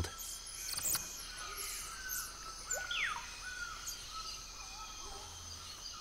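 Tropical forest ambience: a steady high insect drone with scattered short chirps and one falling whistle about three seconds in.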